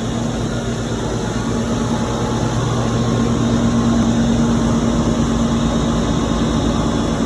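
53-inch industrial wood planer running with a steady machine hum and noise, growing a little louder around the middle.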